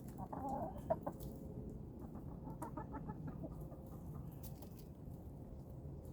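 Chickens clucking in short calls, a cluster about half a second in and another around the middle, over a steady low background hum.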